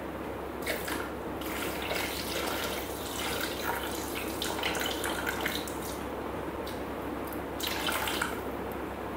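Water poured from an upturned plastic bottle through the lid opening into a Thermomix's stainless steel mixing bowl: a continuous splashing trickle that surges now and then.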